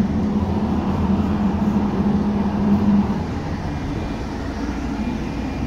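A bus in motion, heard from inside the cabin: steady engine and road rumble. A low hum runs under it and stops about three seconds in.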